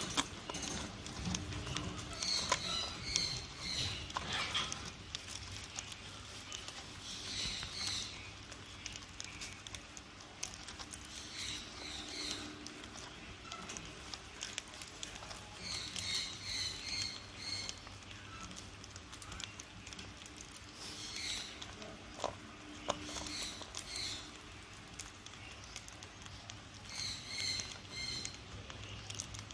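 Pet cockatiels chirping: short runs of quick, repeated high chirps every few seconds, with scattered light clicks and taps between.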